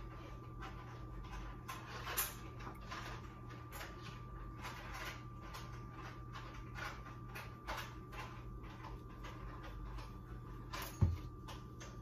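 Plastic spice shaker of garlic powder being shaken over meat: a run of short, soft shakes, about two or three a second, over a steady faint hum. A single low thump near the end.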